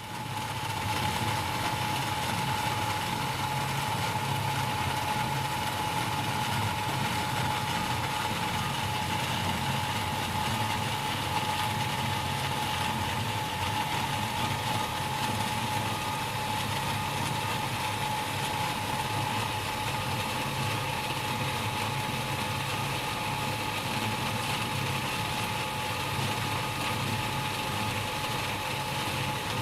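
Electric jet water pump running steadily: a constant high whine over a low hum, with a broad hiss of motor and water.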